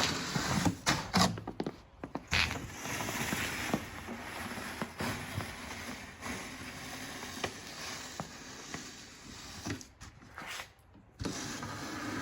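Hand-pushed snow plow blade scraping and shoving wet, heavy snow, a rasping noise in uneven pushes that breaks off briefly twice.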